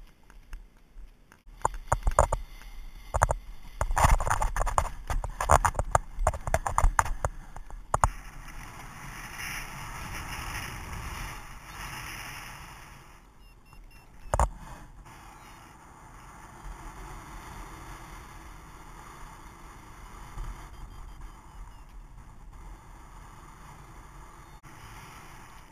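Paraglider launch and flight heard on a helmet camera's microphone. First come about six seconds of loud, irregular knocks and scrapes. Then a steady rush of wind over the microphone once airborne, broken once by a single sharp knock.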